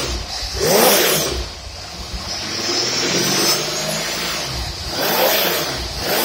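Engine running on a Holley two-barrel marine carburetor with no dyno load, revved by hand: a quick rev about a second in and another near the end, dropping back to a steady run between them. The rebuilt carburetor runs well.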